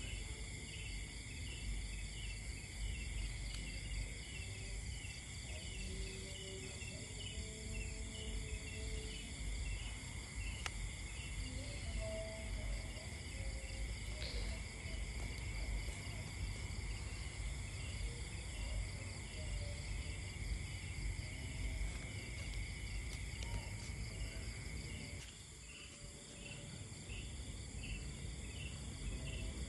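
Night-time insect chorus: crickets and other insects trilling without a break, several high-pitched pulsing and continuous trills layered over one another, above a low rumble of outdoor noise.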